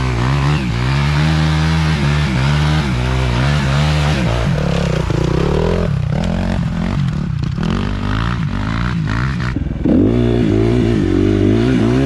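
Small engine running close by, its revs rising and falling, easing off for a few seconds and then coming back louder just before the end.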